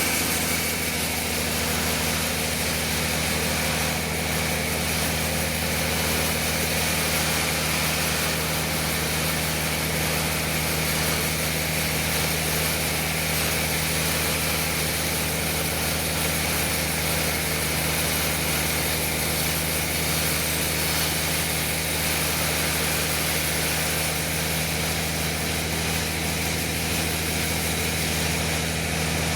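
Sawmill machinery running with a steady, unchanging low mechanical hum.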